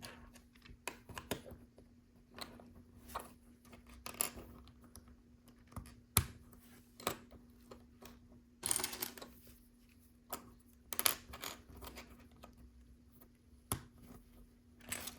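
Plastic LEGO pieces clicking and rattling as they are handled and pressed together, with a couple of brief rustles.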